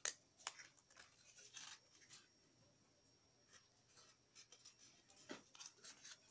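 Faint rustling and soft clicks of cardstock being handled and folded by hand: a few scattered touches, with a short cluster near the end.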